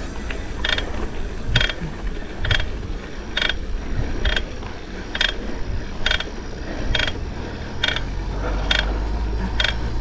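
A mountain bike's drivetrain clicking sharply about once a second while pedalling uphill, over a low rumble. The rider suspects the noise comes from the bottom bracket.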